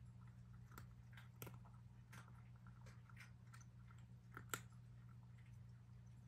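A cat crunching dry kibble, faint and irregular, with a couple of louder crunches about a second and a half in and again near the middle.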